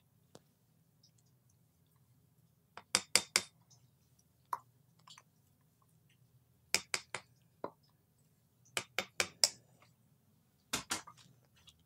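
Spatula and tahini tub knocking against a ceramic mortar as tahini paste is scraped off into it: quick clusters of three or four sharp clinks, with single clinks between.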